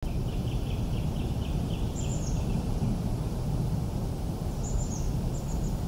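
Birds chirping over a steady low outdoor background rumble. There is a quick run of repeated chirps, about four a second, over the first two and a half seconds, and a few higher chirps about two seconds in and again near the end.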